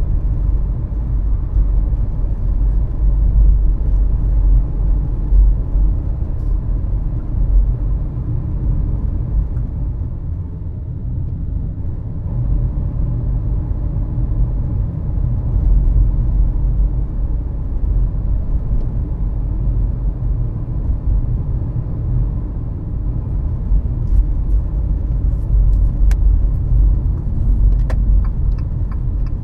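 A car driving along a multi-lane road, with a steady low rumble of road and engine noise that eases slightly about ten seconds in. A few light ticks come near the end.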